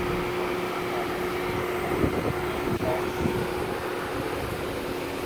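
Steady mechanical hum with a constant tone, with a few low thumps about two to three seconds in.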